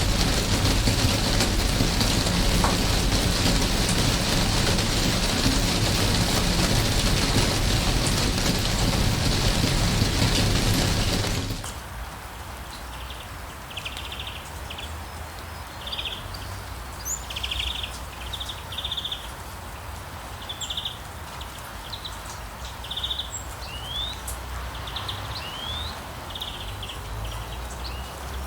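Steady heavy rain, which cuts off abruptly about eleven seconds in, leaving birds chirping in repeated short trills with a few rising whistles over a quiet background hiss.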